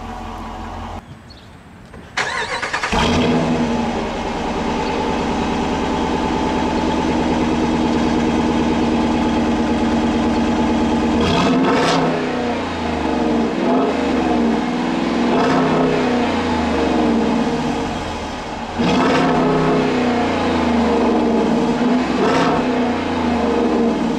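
The power tailgate finishes closing in the first second. Then the 5.7-litre Hemi V8 of a 2012 Dodge Durango R/T is started, heard at the exhaust tip, and idles steadily. From about halfway it is revved four times, each rev rising and falling in pitch.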